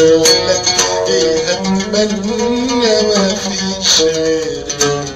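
Oud music: a melody of quick plucked notes.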